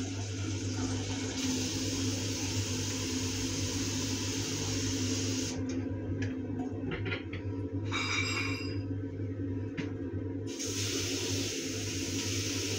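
Water running from a bathroom tap into a basin while a small black bin is washed in it, with a few light knocks of the bin against the basin about six to seven seconds in. A steady low hum runs underneath.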